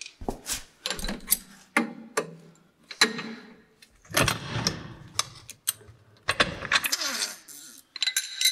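Irregular metallic clicks, clanks and knocks of tools and car-lifting gear being handled, as the car is let down off its jack after front suspension work.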